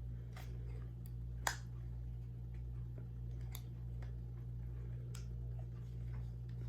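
A few light, scattered clicks from handling a Sony ZV-1F compact camera, the sharpest about one and a half seconds in, over a steady low hum.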